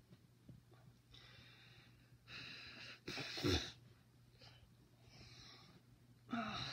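A woman breathing hard during push-ups: a series of about six loud breaths in and out, the strongest a little past the middle.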